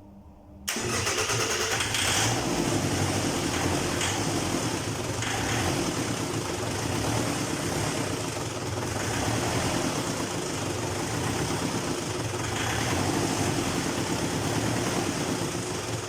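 Ford Transit 2.0 TDCi F3FA four-cylinder diesel engine starting abruptly a little under a second in, then running steadily at idle. It is a used engine being test-run.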